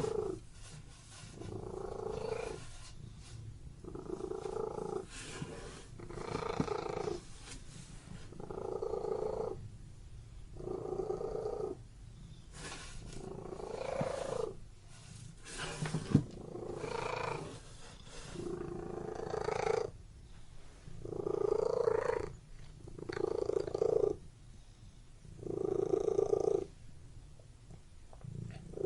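Domestic cat purring close up, swelling and fading with each breath, roughly one swell every two seconds. A single sharp click about halfway through.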